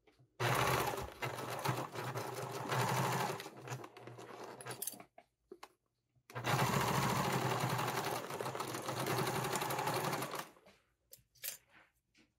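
Electric sewing machine stitching a seam through layered fabric in two runs, about five seconds and then about four seconds, with a short pause between them. A few light clicks follow near the end.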